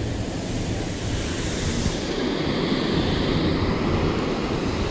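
Steady rushing noise of wind and river water, with wind buffeting the microphone.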